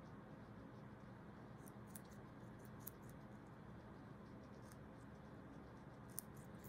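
Guinea pigs chewing carrot sticks: faint crisp crunches now and then, loudest near the end, over a steady low background hum.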